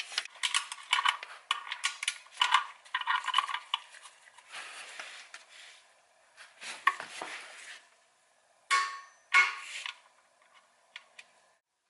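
Metal hand tools clicking and clinking with a short metallic ring, as the 17 mm oil drain bolt is tightened with a ratchet and torque wrench. Two sharper ringing knocks come near the end.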